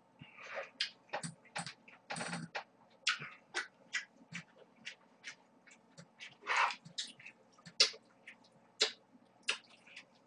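Close-miked slurping and chewing of cold noodles: irregular wet smacks and clicks, with longer slurps about two seconds in and again about six and a half seconds in.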